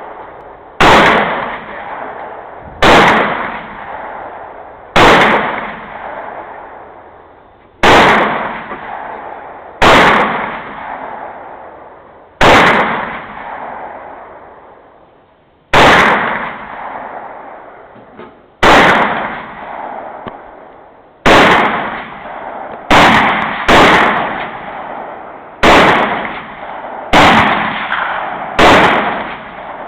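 AR-15 rifle firing single, aimed shots, about fourteen in all, one every one to three seconds, with a quicker pair near the middle. Each shot is loud and sharp with a long echoing tail.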